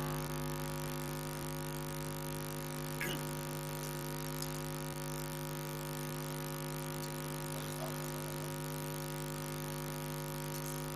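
Steady electrical mains hum, a low buzz that does not change, with a few faint ticks.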